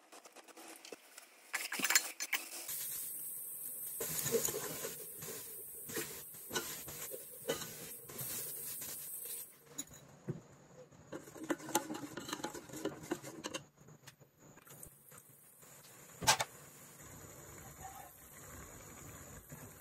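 A ladle stirring and scraping in a large aluminium pot of sautéing rice and spices, with scattered clinks and knocks and a steady sizzling hiss for several seconds. One sharper knock about 16 seconds in.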